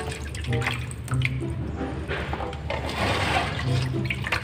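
Water swishing and splashing as hands rub and scoop insect grubs in a metal basin of water, washing them, in swells that come and go.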